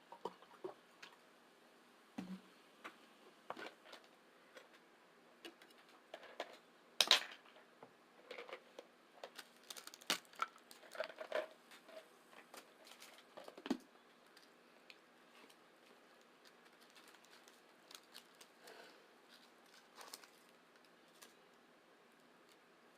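Tacos being eaten close to the microphone: irregular bites, chewing and wet mouth clicks, with light clatter from plates or cutlery. The loudest bite or clatter comes about seven seconds in, and the sounds thin out after about fifteen seconds.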